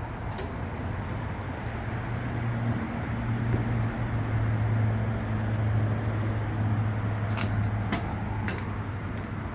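A motor vehicle's engine hum from traffic close by, a steady low drone that swells over a few seconds and then eases off, with two sharp clicks near the end.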